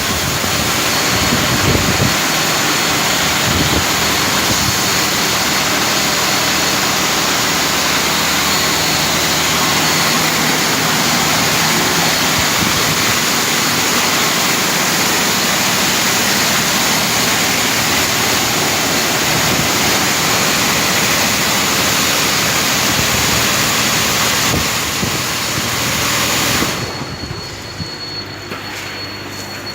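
Automatic heavy-vehicle wash machine running: a loud, steady rushing noise with a faint high whine, which drops away sharply about 27 seconds in.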